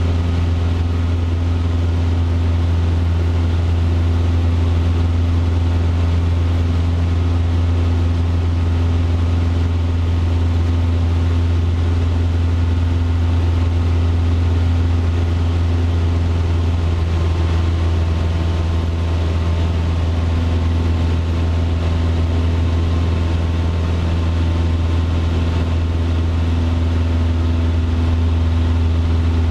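Cessna 150's four-cylinder Continental O-200 engine and propeller droning steadily in flight, heard from inside the cabin.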